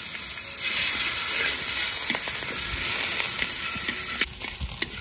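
Pieces of chicken fat sizzling in a hot pan as they are rendered down for their oil. The sizzle swells about half a second in and drops back sharply after a single click a little after four seconds.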